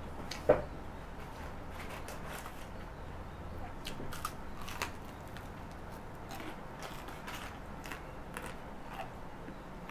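Close eating sounds: a sharp click about half a second in, then crisp crunching about four seconds in as a battered fried tempe is bitten, followed by scattered small chewing clicks.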